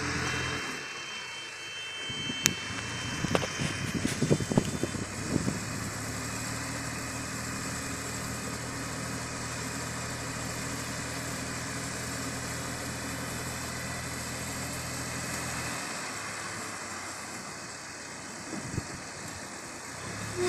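Tractor engine running steadily while pulling a round hay baler, a low even hum that fades briefly near the end. A cluster of sharp knocks and bumps comes a few seconds in.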